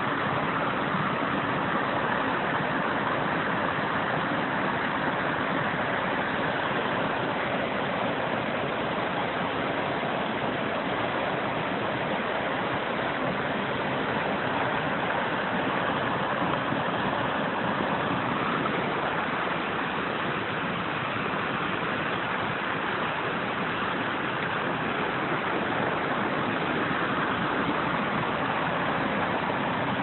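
Small waterfall pouring onto rocks: a steady, unbroken rush of falling and splashing water.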